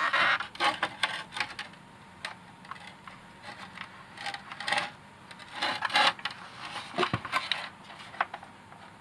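Hard plastic parts of a robot vacuum clicking and rattling in short clusters as its casing is handled and worked at to free the suction motor, with a duller knock about seven seconds in.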